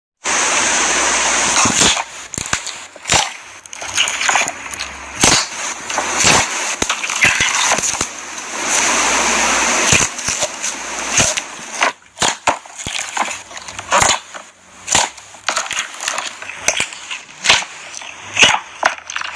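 Clear slime squished and stretched close to the microphone: wet squelching with many sharp pops and clicks as trapped air bubbles burst.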